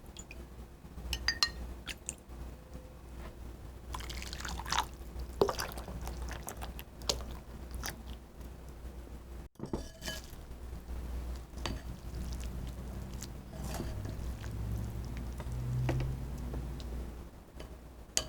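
Scattered light clinks and taps of utensils against dishes, with small liquid sounds, over a low steady hum.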